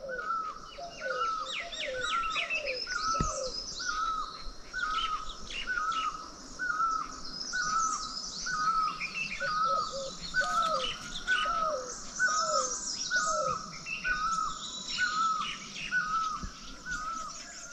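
Morning birdsong from several birds. One repeats a short call about every 0.7 s without a break. A lower, falling note joins in two runs, near the start and again after about ten seconds, over higher chirps and twitters.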